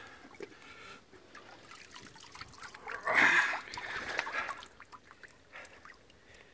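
Water splashing and running off a big common carp as it is lifted out of the lake, loudest in a burst about three seconds in, with quieter trickling around it.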